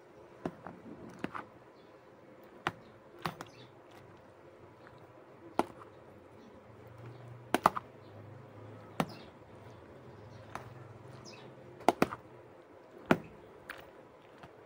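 Metal spoon stirring macaroni salad in a clear plastic container: irregular sharp clicks and taps as the spoon knocks against the container's sides, about a dozen of them.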